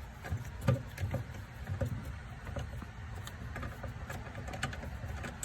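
Irregular light clicks and knocks of metal parts being handled as a bolt is screwed into a door closer's linkage arm.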